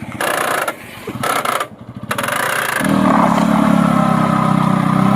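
TVS Apache RTR 180's single-cylinder engine running, with a few short bursts of hissing noise early on. About halfway in it goes up to a higher, steady speed and holds there.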